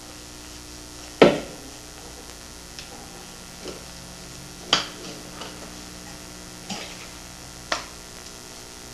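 Baling-wire hanger clicking and scraping against a dried gourd's shell as it is fitted through the drilled hanger holes: four sharp clicks, the loudest about a second in, with a few fainter taps between, over a steady electrical hum.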